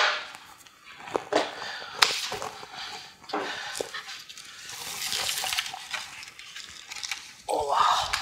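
Hard plastic car bumper parts being handled: several sharp clicks and knocks, with a longer scraping rustle in the middle.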